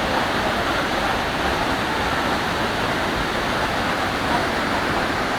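Sungai Pandan waterfall rushing: a steady, even roar of falling water that does not change.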